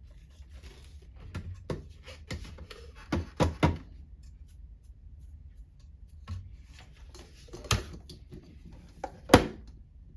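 A series of knocks and clicks from coffee-making gear being handled: the coffee grinder and the filter basket being set down, tapped and fitted. There is a cluster of knocks in the first few seconds and a single sharp, loudest knock near the end.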